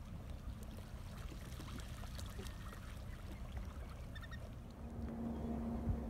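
Wind on the microphone gives a low, steady rumble, with a few faint, short, high calls from the shorebird flock about four seconds in. A steady low hum comes in about five seconds in.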